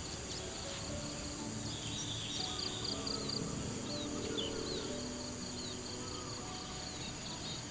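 Outdoor garden ambience: insects droning steadily high up, a rapid repeating high chirp, and short bird calls, with soft background music underneath.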